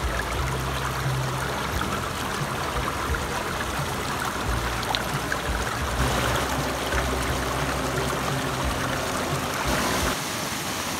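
Spring-fed stream rushing and splashing over mossy rocks in a small cascade, a steady rush of water. A low rumble comes and goes under it and drops away about ten seconds in.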